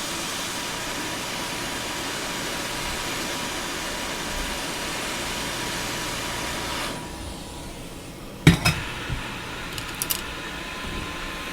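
Hot air rework station blowing steadily while a capacitor is lifted off a donor board, cut off about seven seconds in; a few sharp clicks follow, the loudest about a second and a half later.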